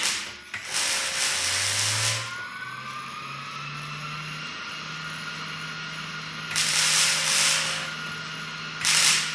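Several loud bursts of hissing, the longest about a second and a half, while a motor hum winds up in pitch over a few seconds and then runs steady.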